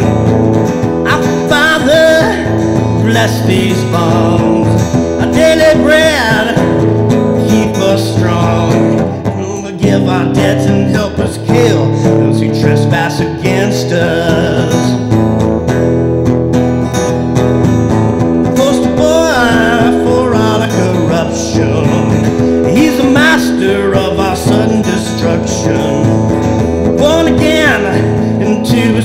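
Acoustic guitar strummed in a steady song accompaniment, with a man singing over it into a close microphone.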